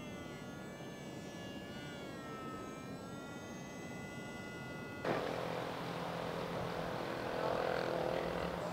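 Radio-control model airplane motor whining overhead, its pitch rising and falling as the plane flies. About five seconds in, the sound cuts to a model biplane's engine: a lower, louder drone.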